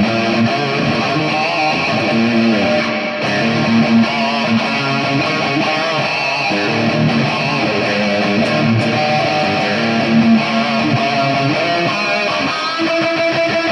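Electric guitar being played, with strummed chords and held notes that change every second or so.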